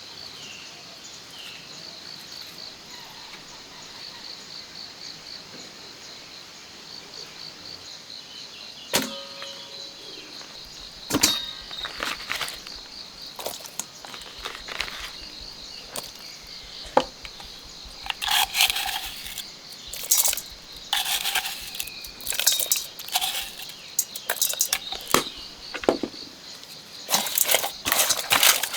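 Insects, crickets by the sound of it, chirping in a steady pulsing trill. From about a third of the way in, irregular knocks and clicks of hard objects being handled join it, growing into busier clattering near the end.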